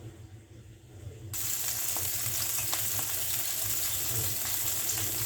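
Colored bell peppers going into hot oil in a paella pan and sizzling. The sizzle starts suddenly about a second in, then holds steady.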